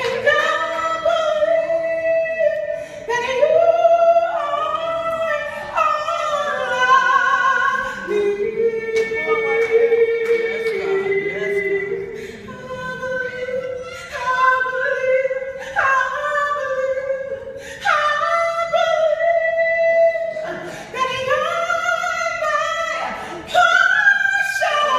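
A woman singing a gospel song solo in phrases of long held notes, some with a wavering vibrato, with short breaths between phrases.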